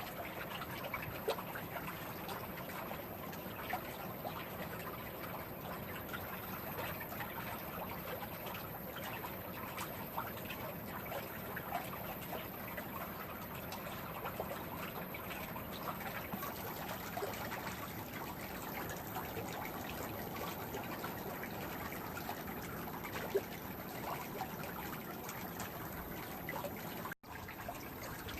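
Swimming pool water: a steady wash of moving water with tiny drips and splashes scattered through it. It drops out for an instant near the end.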